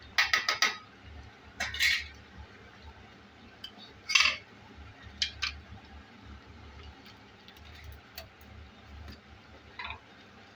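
A spoon clinking against a cooking pan and spice container while masala powder is spooned in: a quick run of clinks at the start, then single clinks about two, four, five and ten seconds in.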